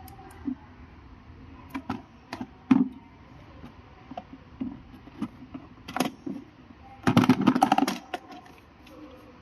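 Small hard objects being handled: scattered sharp clicks and knocks, then a rapid rattle lasting about a second, about seven seconds in.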